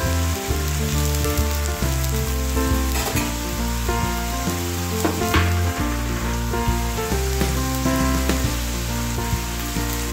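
Background music with a bass line and shifting notes, over a steady sizzle of onions, tomatoes and green pepper frying in a pan.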